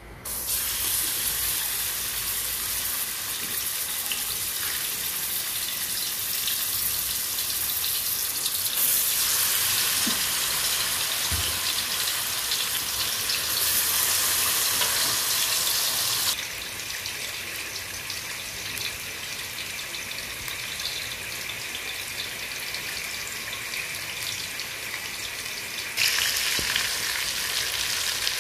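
Fish pieces sizzling as they fry in hot oil in a karahi. The sizzle starts suddenly as the first piece goes into the oil, gets louder partway through, drops back a little after the middle and jumps up again near the end.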